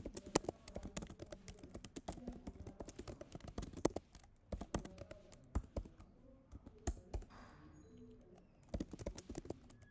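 Typing on a computer keyboard: quick runs of key clicks, with a short pause about seven seconds in.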